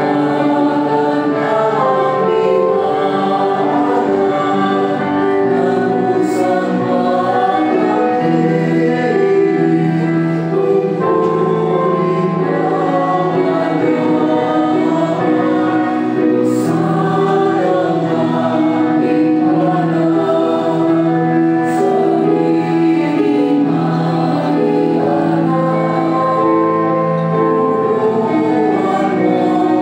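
Church choir singing a hymn in slow, held notes over sustained organ chords; the entrance hymn at the start of Mass.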